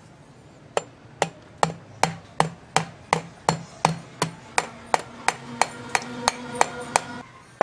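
Hammer tapping a starter motor's metal housing near the solenoid end in a steady series of light strikes, about two to three a second, with a faint metallic ring under the later ones. The tapping seats the part snugly so it won't come loose.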